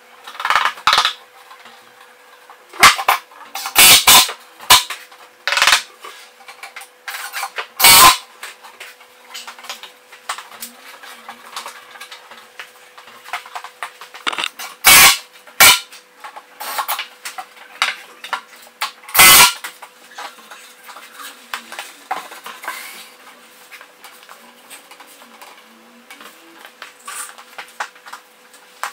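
Workshop handling noise from assembling MDF shelving: scattered sharp knocks and clatters of boards and tools, with light metallic clinks, over a faint steady hum.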